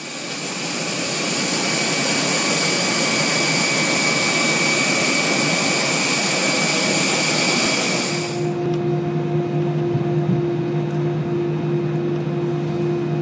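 Loud jet engine whine with a steady hiss and several high steady tones, cutting off abruptly about eight seconds in. It gives way to a quieter, lower steady hum: an Airbus A320's engines idling, heard from the cabin over the wing.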